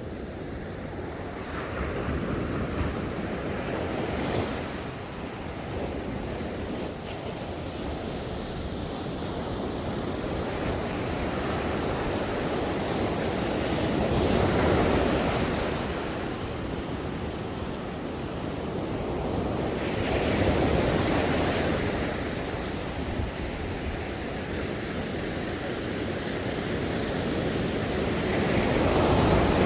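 Ocean waves washing onto a shore, a steady rushing that swells and falls in irregular surges, the loudest about halfway through and near the end.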